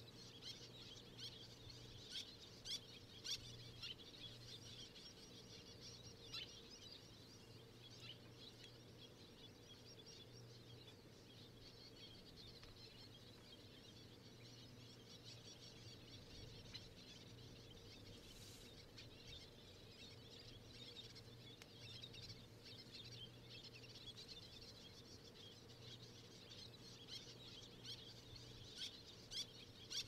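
Faint, continuous high chirping of many distant birds over a steady low hum. A few short splashes stand out about two to three seconds in and again near the end.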